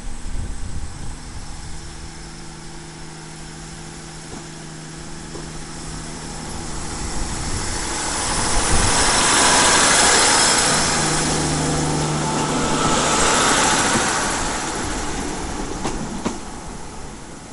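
Class 150 Sprinter diesel multiple unit's underfloor Cummins diesel engines idling with a steady hum. It then gets under way, with a growing rush of engine and wheel noise as the unit passes close by, loudest about ten seconds in, easing off near the end.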